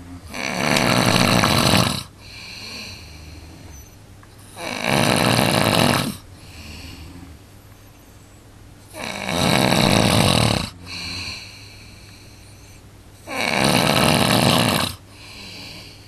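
A man snoring heavily in his sleep: four long, loud snores about four seconds apart, with softer breathing sounds between them.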